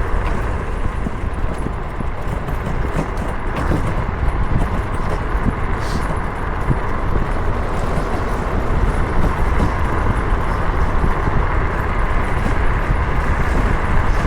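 Wind rushing over the microphone of a bike rider descending a steep road at speed, a steady heavy roar that grows slightly louder as the speed builds.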